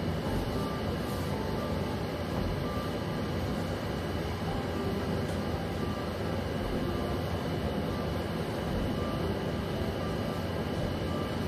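Steady low rumbling background noise with a faint hum, unchanging throughout.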